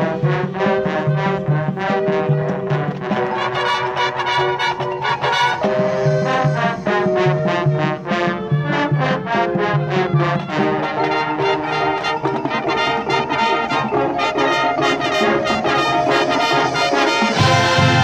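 Marching band playing: a brass section with percussion, in quick rhythmic chords. The full band grows fuller, with a strong low end, about a second before the end.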